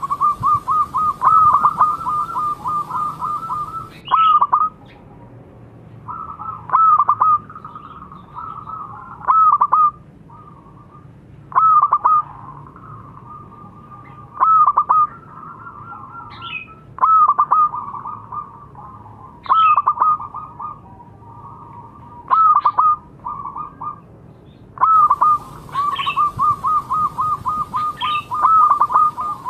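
Local zebra dove with a small voice, cooing: phrases of rapid staccato coos repeated every few seconds, with longer fast runs at the start and near the end.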